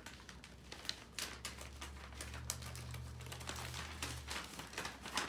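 Gift packaging being handled and unwrapped: quick, irregular crinkles, clicks and small taps of paper and cardboard. A low hum sits under them through the middle.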